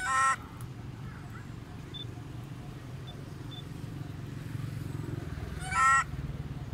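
Macaque giving two short, high-pitched screeching calls with a wavering pitch, one at the start and one about six seconds later.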